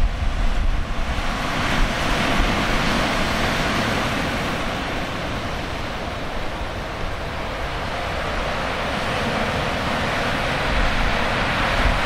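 Heavy storm surf from typhoon-driven waves, a continuous dense wash of breaking water that swells and eases slowly, with wind buffeting the microphone in low rumbles at the start and again near the end.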